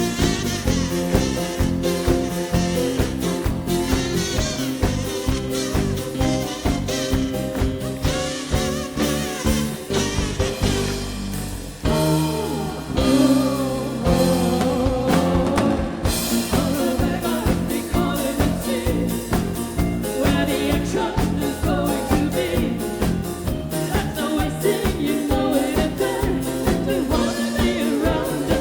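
Live band music from a drum-kit-driven cover band playing a film-music medley, with a steady beat. About twelve seconds in the beat drops out for a moment, then the band comes back in.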